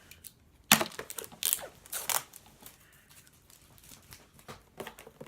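Packaging of a blaster box of football trading cards being torn and crinkled open: one sharp rip just under a second in, then a few smaller rips and crinkles that trail off into faint rustling.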